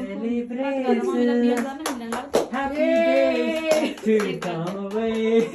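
Voices singing together with hand claps as a cake is cut, with long held notes.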